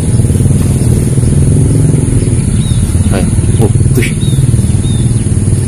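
A steady low engine rumble, like a motor vehicle running close by. A few short high chirps sound in the middle.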